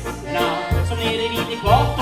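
Old-time Swedish dance band playing a 1930s song: accordion over an upright double bass, acoustic guitar and drums, with a steady beat.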